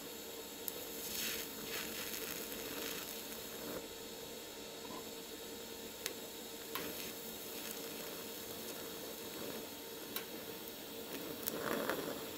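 Lift-TIG welding on thin steel body panel: a faint steady hiss and hum between short stitch welds, with a few light ticks, then a louder hiss near the end as the arc is struck again.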